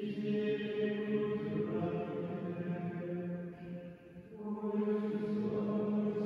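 Benedictine monks' male voices chanting the Office of Vespers in unison, holding long, mostly level notes, with a short pause about four seconds in before the chant resumes.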